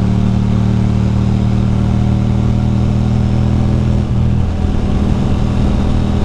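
2006 Ducati Monster 620's air-cooled L-twin engine running steadily at cruising speed, with a brief dip in the engine note about four seconds in.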